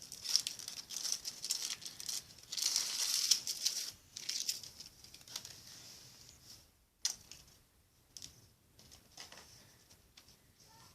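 Foil wrapper of a Kinder Surprise egg crinkling and tearing as it is unwrapped by hand, loudest about three seconds in. The rustling then fades to quieter handling, with one sharp click about seven seconds in.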